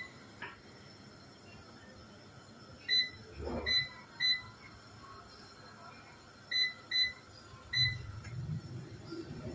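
Air fryer's touch control panel beeping as its buttons are pressed to set it: six short, high beeps in two groups of three, with a soft low thump among the first group.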